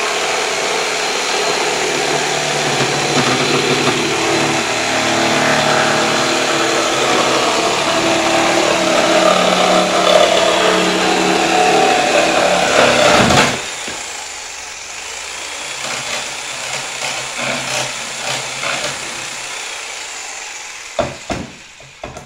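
Makita JR3000V corded reciprocating saw running and sawing through a wooden board, a steady motor tone with rasping blade noise. A little past halfway it drops suddenly to a quieter cut, and a few knocks sound near the end.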